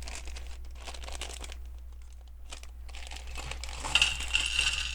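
Plastic bag of Lego pieces crinkling and rustling as it is handled, faint at first and louder about four seconds in.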